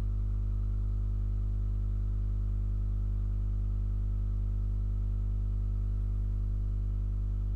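A steady electrical hum with a buzzy row of overtones, unchanging in pitch and loudness throughout.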